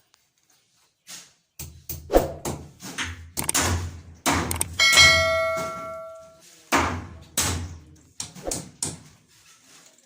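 A series of knocks and bangs, with one ringing metallic clang about five seconds in.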